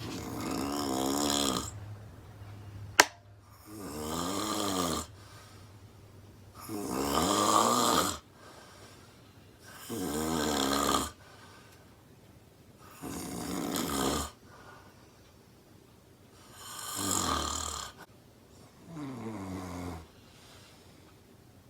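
A woman snoring loudly, with a long pitched snore about every three seconds, seven in all. A single sharp click sounds about three seconds in.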